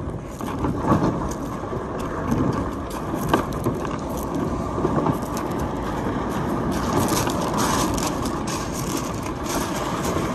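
Cambridge one-seat fishing kayak dragged over a shingle beach: continuous crunching and grinding of pebbles under the hull, full of small clicks and rattles. It grows busier and brighter from about seven seconds in.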